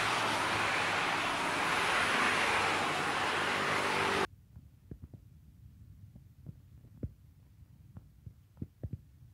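Steady rushing street noise of road traffic, which cuts off suddenly about four seconds in. Then quiet, with a few faint low thumps.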